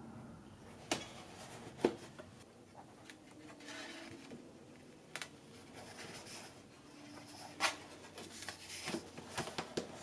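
Faint rustling of thick hot-pressed watercolour-paper pages being handled and turned in a hand-bound journal, with a few sharp paper flicks and taps, more of them near the end.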